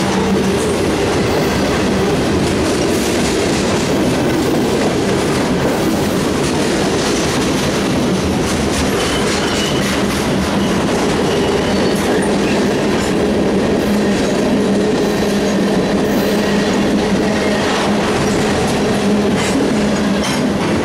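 Freight train cars rolling past close by: a steady rumble of steel wheels on rail with clicking over the rail joints and a steady low hum.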